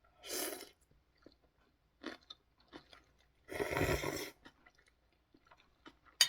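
Someone eating instant ramen close to the microphone: chewing, with two louder noisy stretches of eating noise, a short one near the start and a longer one about halfway through, and a sharp click at the very end.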